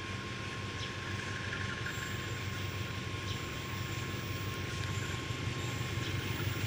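Distant diesel locomotive approaching on the line, its engine a steady low rumble that slowly grows louder.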